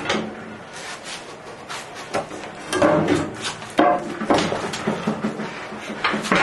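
Irregular wooden knocks and clunks as a heavy bandsaw cabinet on a wheel kit is rocked and shifted against timber battens.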